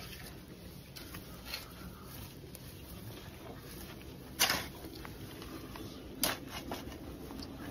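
A hand patting and pressing grass turf down onto loose soil, with soft rustling of grass and earth. A few short sharp taps stand out, the loudest about four and a half seconds in and another near six seconds.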